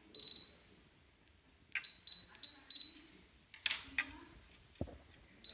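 Topcon total station (MS05) working through an automatic measurement: several short high beeps, mixed with sharp clicks, and a couple of low thumps near the end.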